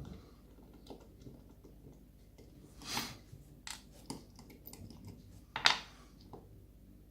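Light clicks and scrapes of a lock and small metal tools being handled, with two louder short scrapes, about three seconds in and again near the end.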